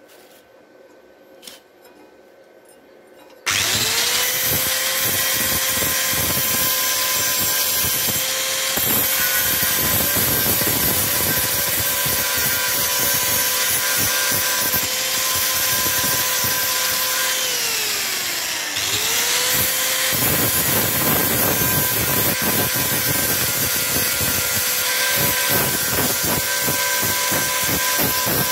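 A few faint clicks, then about three and a half seconds in an angle grinder switches on and spins up to a steady whine, its disc grinding rust and scale off a steel plate with a rough, uneven scraping. About two-thirds of the way through the motor winds down in pitch, then speeds back up and keeps grinding.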